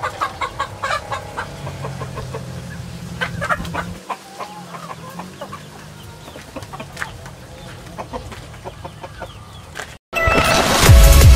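Native chickens clucking, with quick runs of short calls near the start and again about three seconds in. About ten seconds in the sound cuts out briefly and gives way to loud electronic music with a heavy bass beat.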